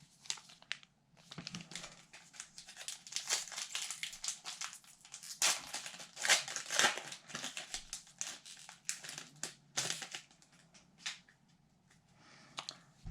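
Plastic wrapper of a hockey card pack crinkling and tearing as it is opened by hand, in irregular crackles that thin out near the end.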